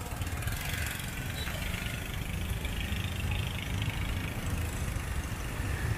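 Street background noise dominated by a steady low rumble of motor vehicle engines running nearby, with no distinct events.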